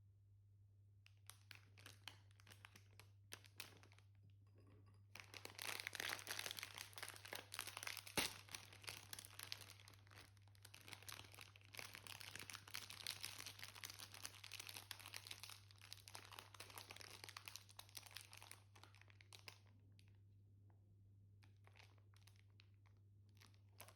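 Faint crinkling and rustling, like something crumpled or handled, densest from about five seconds in until near the end, over a steady low hum.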